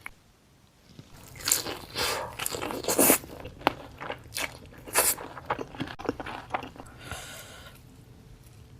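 Close-up bite into a crispy fried Wingstop chicken wing: a run of loud, sharp crunches of the fried skin, then quieter chewing near the end.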